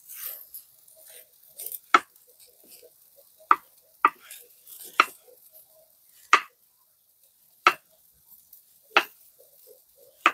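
Knife chopping on a cutting board: about eight sharp, separate strokes, roughly one every second and a half.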